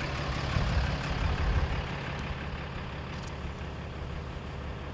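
Ram 3500's 6.7 L Cummins turbo diesel idling steadily, a low even hum that is a little louder in the first two seconds.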